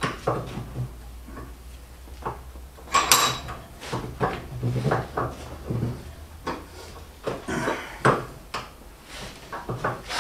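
Irregular metal clinks, scrapes and knocks of hand tools working on a universal-joint yoke clamped in a bench vise, as the old debris is cleaned out of it. The loudest knocks come about three seconds in and again about eight seconds in.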